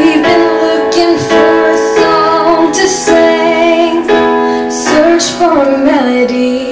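A woman singing a ballad with vibrato while accompanying herself on a Yamaha electronic keyboard, with piano chords struck about once a second.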